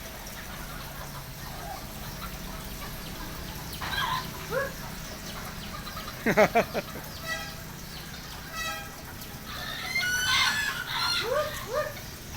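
Bantam chickens clucking and calling: short rising calls here and there, a loud cluster of clucks about six seconds in, and a longer call around ten seconds in.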